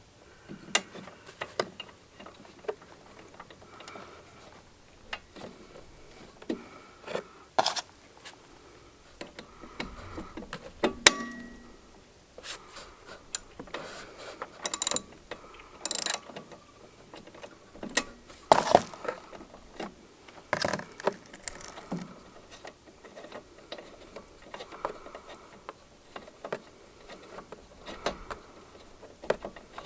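Scattered metal clicks and clinks of a spark plug wrench being fitted and turned to take the spark plug out of a Honda HRX217 mower engine, at irregular spacing with brief pauses.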